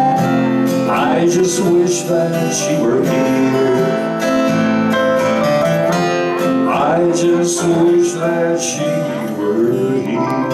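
Small live band playing a country song, led by strummed acoustic guitar with electric guitar.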